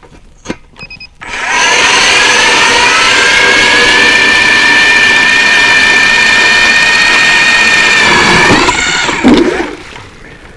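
StrikeMaster Lithium battery-powered ice auger drilling into lake ice. After a couple of clicks, the electric motor starts about a second in and runs with a steady high whine for about seven seconds. Its pitch rises briefly just before it stops.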